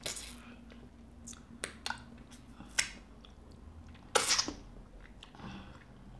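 Close-miked eating sounds of fufu and nsala soup eaten by hand: scattered wet lip smacks and chewing, with a louder, longer wet mouth sound about four seconds in.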